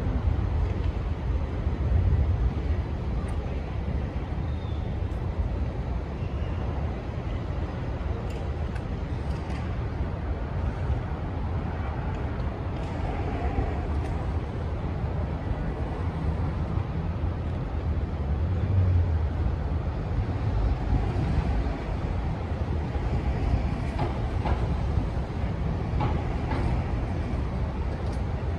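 City traffic ambience: a steady low rumble of passing vehicles, with a few faint clicks.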